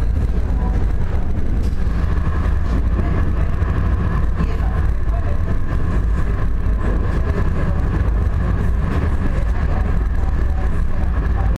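Tram running, heard from inside the passenger cabin: a steady deep rumble of wheels on rails and body vibration, with a steady higher whine joining about two seconds in.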